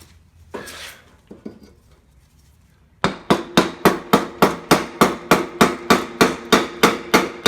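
A hammer striking metal in a fast, even run of about three blows a second, starting about three seconds in, each blow ringing. Before it, a few soft knocks and a brief rustle.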